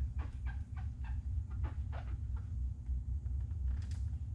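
Applicator pad rubbing polish and wax onto a white toolbox drawer front, squeaking in short quick chirps that thin out after about two and a half seconds, over a steady low hum. A brief hiss comes near the end.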